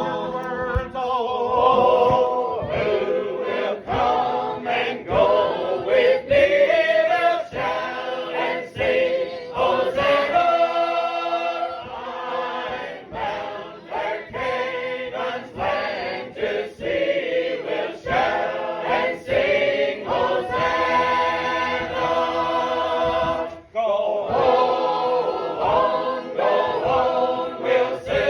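A group of voices singing a hymn unaccompanied, with long held chords.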